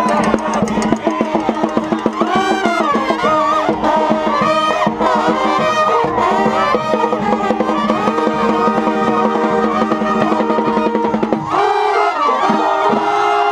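A New Orleans brass band playing at close range: trombones, trumpets and sousaphone over drums, with the surrounding crowd. About two seconds before the end, the drums and low bass drop out, leaving the horns and crowd voices.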